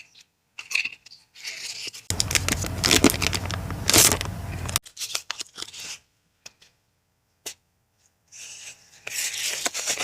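Paper and packaging handled close to the microphone, rustling and tearing in bursts. It is loudest for about three seconds starting two seconds in, goes almost quiet for a couple of seconds, then the rustling starts again near the end.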